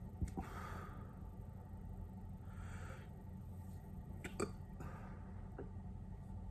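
Quiet breathing during a bout of hiccups: a soft breath about every two seconds, with a few faint clicks in between.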